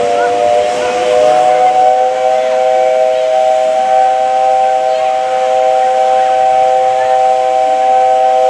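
One long blast on the steam whistle of JNR Class 8620 locomotive No. 58654, sounding as a steady chord of three notes.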